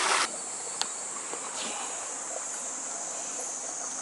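Rushing stream water cuts off abruptly a quarter second in, giving way to a steady, high-pitched chorus of insects over faint water, with a single light click about a second in.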